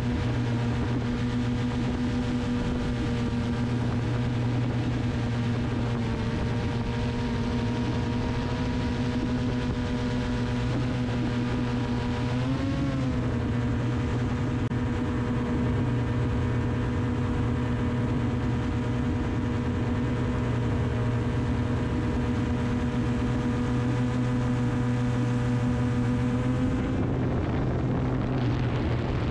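Multirotor drone propellers humming at a steady pitch, with a brief rise and fall in pitch about twelve seconds in. Near the end the steady hum gives way to a rougher rushing sound.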